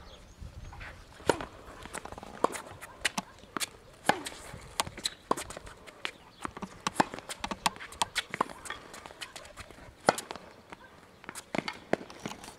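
Tennis point being played on a hard court: racket strokes on the ball and ball bounces as sharp, irregular knocks, with footsteps on the court in between.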